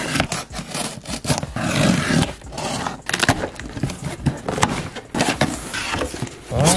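Cardboard shipping box being torn open by hand: packing tape ripping and cardboard flaps scraping as they are pulled up, a run of short rips, crackles and clicks.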